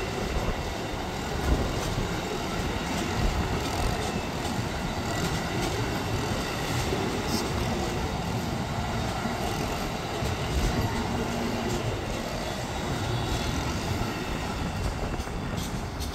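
Amtrak Amfleet passenger cars of a departing train rolling past at close range: a steady rumble of steel wheels on the rails, with occasional faint clicks.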